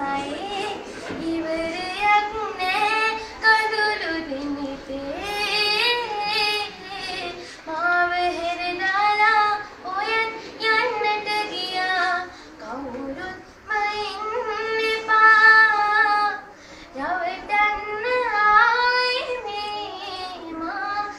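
A high voice singing a melody alone, in held, gliding phrases of a few seconds with short breaths between them; no instrument is heard.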